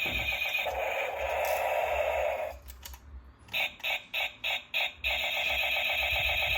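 Electronic toy sound effect: a steady, rapidly pulsing buzz that breaks off about two and a half seconds in, then five short beeps about three a second, then the pulsing buzz again.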